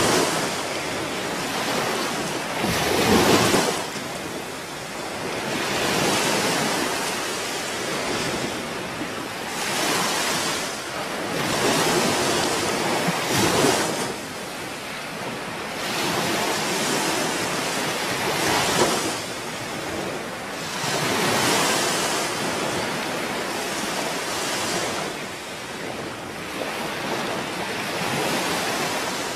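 Sea surf breaking on a shore, the noise swelling and falling back every few seconds, with wind.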